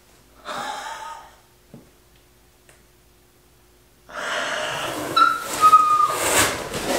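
A woman's breathy gasp of surprise, then a pause, then a louder excited breathy squeal with a short high held note. Near the end, cardboard box flaps rustle and scrape as she reaches into the box.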